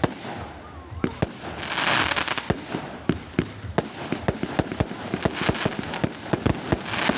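Fireworks going off in a rapid, irregular run of sharp bangs and cracks, with a swell of hissing, crackling noise about two seconds in and again near the end.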